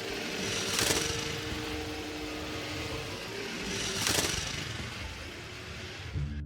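Animated-film sound effects: a steady rushing noise with two brief whooshes about three seconds apart, and faint music fading out near the start.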